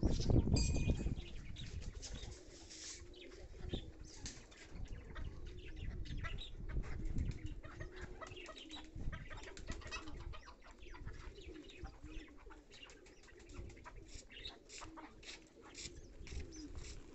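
Bantam chickens pecking at a crust of dried pigeon droppings on concrete: many quick, sharp taps and scratches, with short, low, soft bird calls repeating through them. A loud rustling rumble in the first second.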